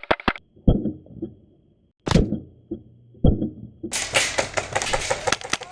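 Airsoft skirmish gunfire: the tail of a rapid string of sharp cracks right at the start, then three single dull thumps spread over the next few seconds, and from about four seconds in a dense clatter of rapid cracks.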